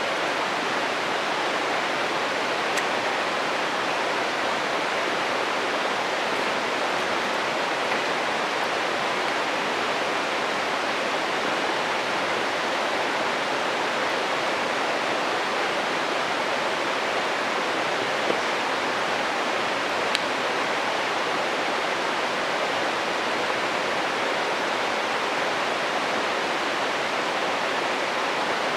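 Steady rushing of a stream by a campfire, with a few sharp pops of the burning wood crackling now and then.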